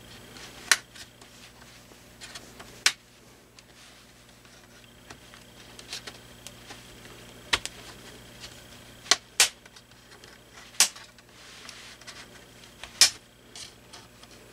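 Plastic retaining clips of a Dell Latitude D430's LCD bezel popping loose as the bezel is pried off. The clicks are sharp and come about seven times, a second or more apart, with quiet handling between them.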